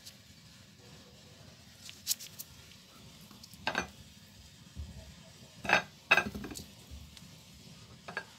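Glass bottles and jars being picked up and set down on a ceramic plate: several separate clinks and knocks, the loudest pair about six seconds in.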